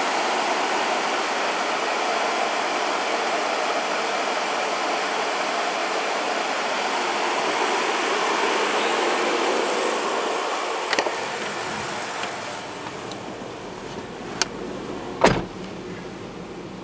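Chevrolet S10 pickup engine idling steadily, with no lifter tick to be heard: the owner says the engine noise is gone after an engine flush. It turns quieter about two-thirds of the way through, with a few sharp clicks and one louder knock near the end.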